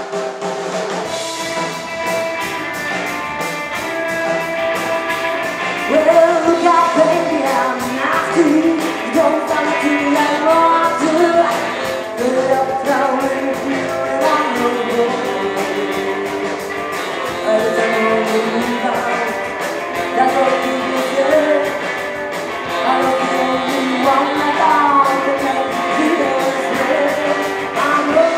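A live rockabilly band playing a song, guitar over a steady drum beat, with a lead voice singing from about six seconds in.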